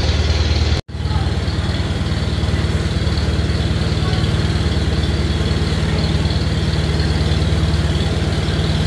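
A narrowboat's diesel engine running steadily at low revs with an even low beat, heard inside a brick canal tunnel. The sound drops out for a moment about a second in, then carries on unchanged.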